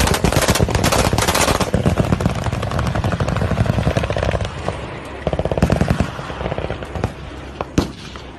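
Bursts of rapid automatic gunfire, a fast even rattle of shots that is loudest in the first two seconds and comes back in shorter bursts later.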